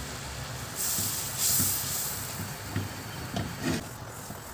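Butter and flour roux sizzling in a nonstick frying pan as a spatula stirs it, with a louder hiss of sizzling about a second in. Soft, irregular scrapes and knocks of the spatula against the pan.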